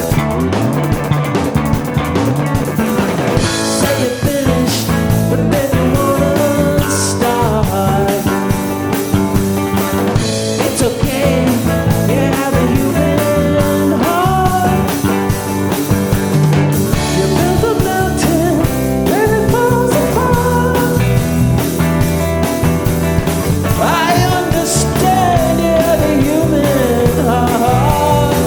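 Rock band jamming through an instrumental passage: drum kit and guitar, with a lead line that bends and slides in pitch.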